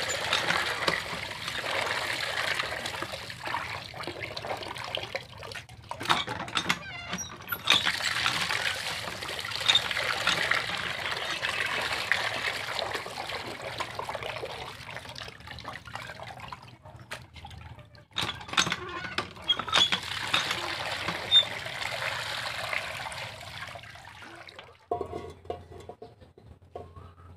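Water running from a pipe spout and splashing into an aluminium pot as raw chicken pieces are washed in it by hand. The flow dips briefly a couple of times and stops near the end.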